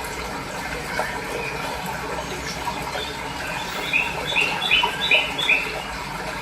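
Fresh water running steadily, with a small bird chirping a quick run of about five repeated notes about four seconds in.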